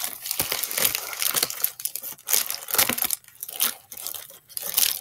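Crinkling and rustling of a plastic Amazon mailer bag being handled and pulled at, in quick irregular scrunches.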